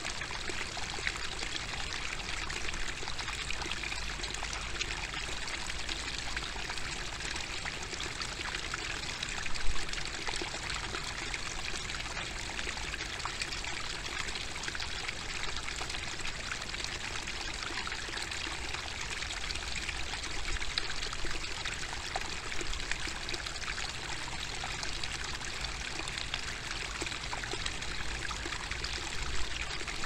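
A small rocky stream babbling, water trickling steadily over a little cascade between stones into a shallow pool, with one brief louder sound about ten seconds in.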